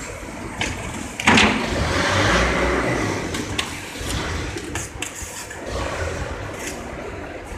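Machinery noise from a melamine board laminating line. About a second in, a sudden loud rush of noise starts and fades over the next two seconds, with scattered knocks and clicks.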